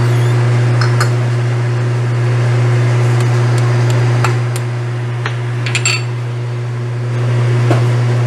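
A spatula clicking and tapping against a stainless steel pan while chicken in sauce is stirred, a few scattered sharp clicks, over a steady low hum.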